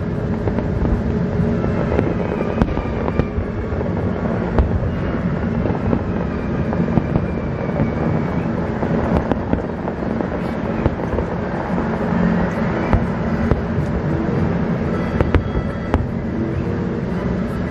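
Magic Kingdom fireworks display going off: a continuous rumble with many sharp bangs and crackles throughout.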